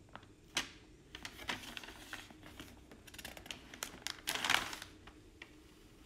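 Paper pages of a printed instruction manual being handled and turned: a run of soft rustles and small clicks, with the loudest swish of a page turning about four and a half seconds in.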